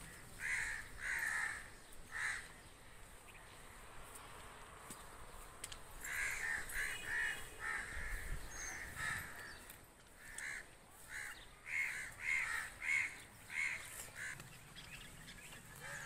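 Crows cawing in short repeated calls: a few near the start, then a run from about six to nine seconds in and another from about ten to fourteen seconds in.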